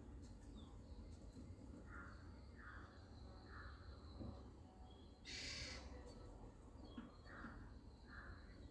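A bird calling faintly, two runs of three short calls, with a brief hiss of noise between them.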